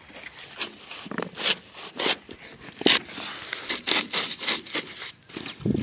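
Flat plastic lay-flat irrigation hose being unrolled and pulled over the end of a rusty metal pipe: irregular scraping, rubbing and crinkling of the hose, in short uneven strokes.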